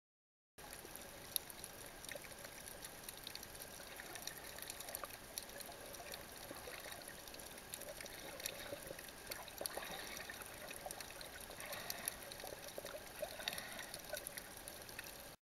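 Underwater ambience picked up by a camera held below the surface on a shallow reef: a steady low hiss full of faint crackles and clicks, with one sharper click about a second and a half in.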